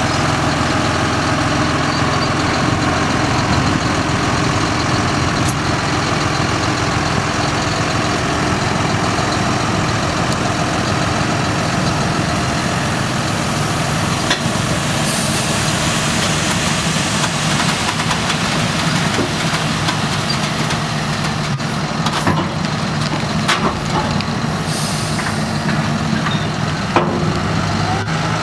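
John Deere tractor's diesel engine running steadily as it pulls a tipping trailer over loose earth, with a few sharp knocks in the last several seconds.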